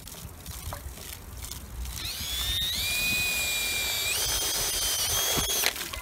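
Cordless drill whining as it bores a hole through the side of a water-filled metal saucepan. It starts about two seconds in, rises in pitch in steps, then stops abruptly near the end, over water splashing from a garden hose into the pot.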